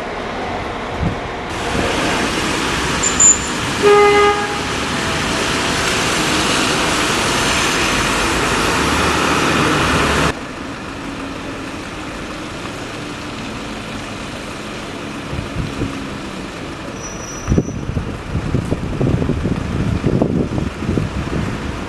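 Steady vehicle and traffic noise with one short horn toot about four seconds in. The noise drops suddenly about ten seconds in to quieter street noise with scattered knocks.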